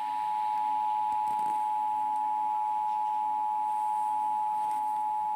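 Emergency Alert System attention signal from a TV broadcast: the standard two-tone alert, two steady pitches sounding together, held unbroken. It marks a required monthly test of the alert system, coming before the spoken test message.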